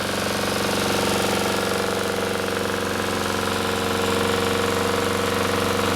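Honda GCV160 single-cylinder engine on a Troy-Bilt TB542 walk-behind lawn mower running steadily. Its blade has been freshly tightened, which the owner believes cured an odd engine noise, and it sounds better.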